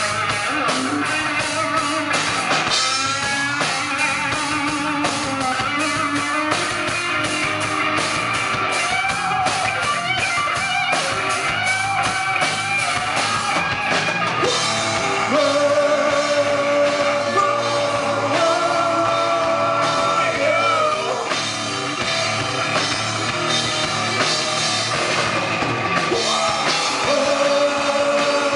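Live rock band playing loud, steady rock: distorted electric guitar over bass guitar and a drum kit.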